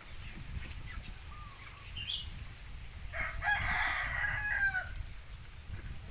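A rooster crows once, about three seconds in, a call of under two seconds that ends on a falling note. Faint short bird chirps come before it.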